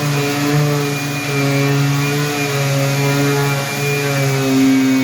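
An electric motor running with a steady whine, its pitch shifting slightly a few times as the load changes.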